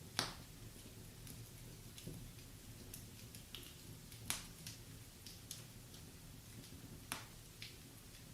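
Wood fire crackling in a fireplace: many small ticks, with three louder sharp pops, one right at the start, one about midway and one near the end, over a faint low steady rumble.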